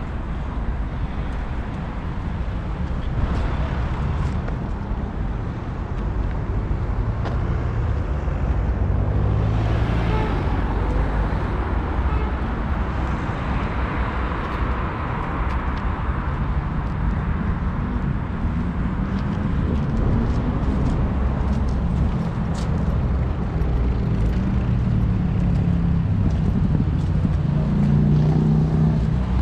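City road traffic: cars driving past on a busy riverside road, a steady rumble with one vehicle swelling loudly past around the middle and an engine note building near the end.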